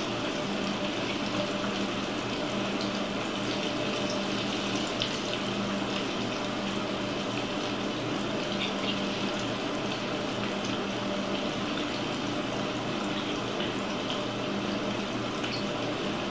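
Battered cauliflower deep frying in a pot of hot grease: a steady bubbling sizzle, with a few sharper crackles near the middle as another battered piece is lowered into the oil.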